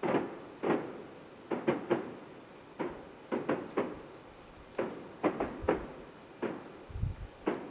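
Distant fireworks display, about a mile off: a rapid, irregular series of shell bursts, sharp bangs each trailing off in an echo, with a deeper boom about seven seconds in.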